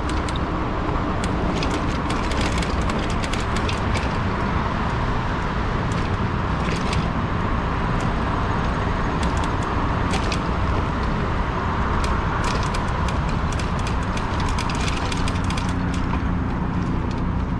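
Steady ride noise from a fat-tire e-bike under way: wind rushing over the microphone and the tires humming on the road, with frequent small clicks and rattles.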